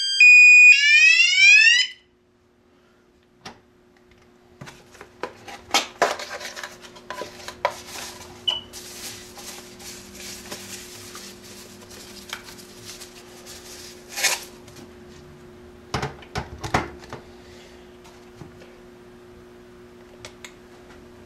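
Wireless indoor alarm siren sounding a loud pattern of stepped tones that ends in a rising sweep, cutting off suddenly about two seconds in. After a short pause come scattered clicks, rustles and knocks over a steady low hum.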